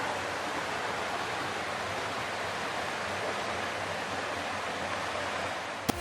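Mountain stream water rushing steadily over rocks; it cuts off with a click near the end.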